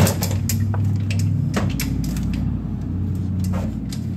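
A door being pushed open with a sharp knock, followed by a few lighter knocks and clicks, over a steady low hum.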